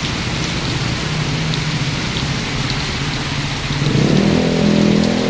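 Steady rain falling on surfaces, with a low engine hum underneath; about four seconds in, an engine grows louder and rises slightly in pitch.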